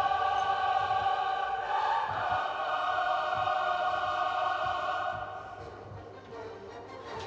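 Background music of sustained choir voices holding long chords, which fade away about five seconds in, leaving quieter music.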